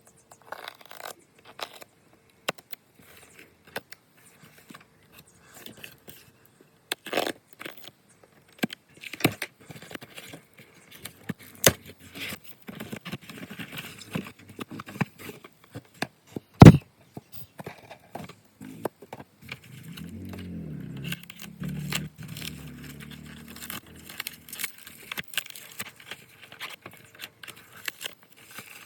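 Handling sounds of unboxing plastic toy cars: scattered clicks, rattles and scrapes of packaging and plastic, with one sharp knock about two-thirds of the way through and a short low rumble just after it.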